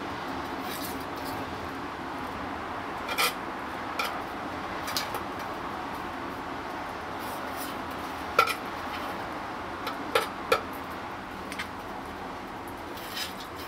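Metal feeding tongs clicking and clinking as a bearded dragon bites fruit from them: about half a dozen short, sharp clicks at irregular intervals over a steady low hiss of room noise.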